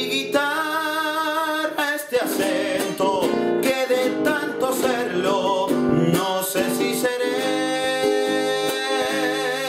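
A man singing a zamba while accompanying himself on a nylon-string guitar; his voice holds long notes with vibrato over the plucked and strummed guitar.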